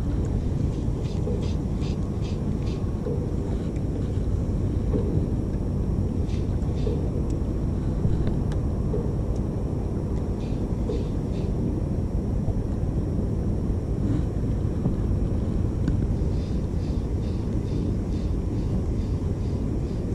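Spinning reel being cranked to retrieve a lure, heard as short runs of faint rapid clicking, several times, over a steady low rumble.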